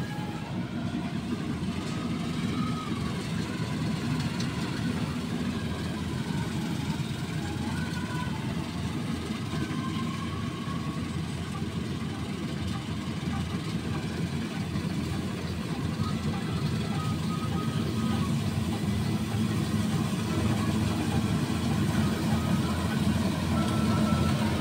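Combine harvester running steadily while cutting wheat: engine and threshing machinery in a continuous low drone, getting louder over the last several seconds as the machine draws near.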